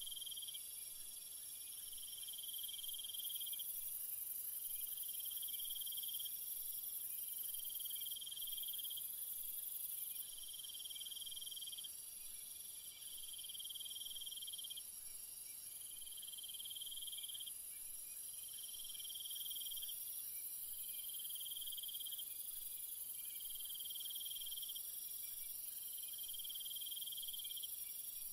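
Insects trilling: a steady high hiss, with a lower chirring trill that repeats about every two and a half seconds, each lasting a second or two.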